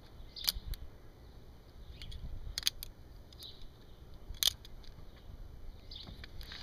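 Titanium balisong (butterfly knife) being handled: a few sharp metallic clicks of the handles and latch, the loudest about four and a half seconds in.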